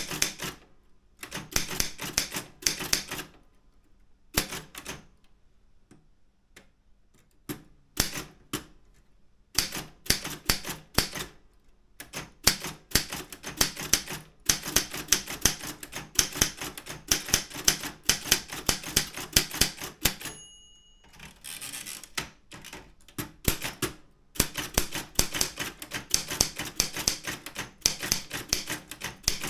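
Daro Optima M16 manual typewriter being typed on in quick bursts of key strikes, with pauses between runs. About two-thirds through, the margin bell rings once, followed by a short sliding rattle as the carriage is returned for a new line.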